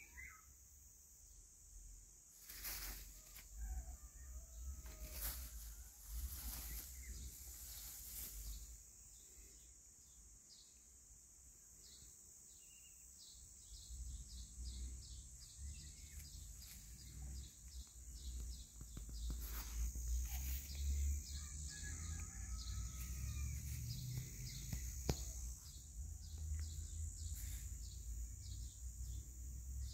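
Outdoor ambience: wind rumbling on the microphone, heavier over the second half, under a steady high hiss. A rapid run of ticking chirps joins from about the middle, with a few faint bird calls and a couple of sharp knocks.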